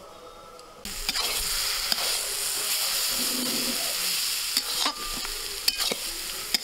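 Mashed young jackfruit and potato filling sizzling in mustard oil in a metal kadai as it is stirred with a steel spatula, with a few clicks and scrapes of the spatula against the pan. The sizzle starts suddenly about a second in.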